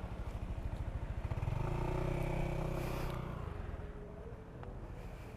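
Motorcycle engine running steadily while riding. About a second and a half in, a louder engine swells for around two seconds and then fades.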